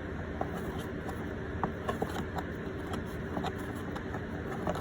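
Bissell PowerForce Helix upright vacuum running steadily, with a scattering of light clicks over the motor noise.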